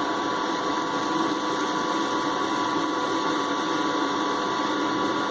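Small electric motor and fan of a homemade vacuum cleaner running steadily, a constant whine over a rushing hiss.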